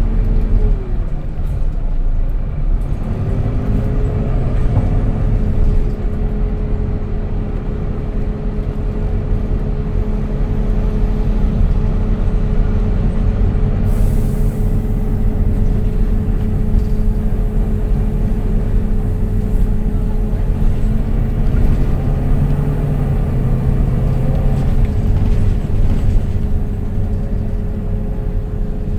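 Volvo B9TL double-decker bus on the move: a steady engine and driveline rumble with a constant high whine over it. The whine drops and climbs back about one to three seconds in.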